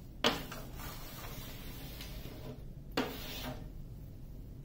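Handling noise from a diamond painting canvas being pressed and smoothed on a table: two light knocks, one just after the start and another about three seconds in, with faint rubbing between.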